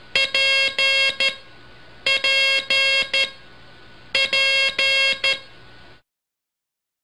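Morse code sent as a keyed tone: the same short-long-long-short group (the letter P) three times, about two seconds apart, over a steady hiss that cuts off near the end.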